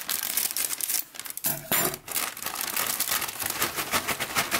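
Metallised plastic snack packet crinkling and rustling as it is cut open with scissors and handled.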